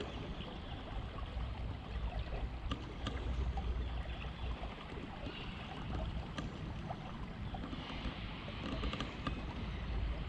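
River ambience: a steady wash of moving water with low wind rumble on the microphone, and a few small scattered clicks.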